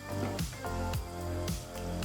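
Background music with a steady beat of about two strikes a second over held tones and a bass line.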